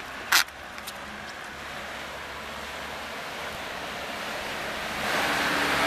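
Floodwater rushing and running, a steady watery rush that grows gradually louder and steps up near the end, with one sharp click shortly after the start.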